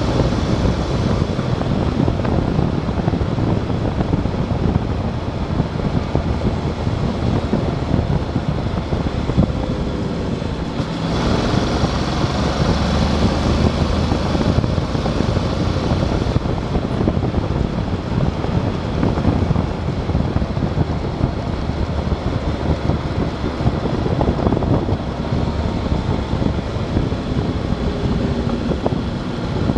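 Motorcycle engine running at road speed under heavy wind rush on the microphone, its note rising and falling as the bike speeds up and slows through the bends.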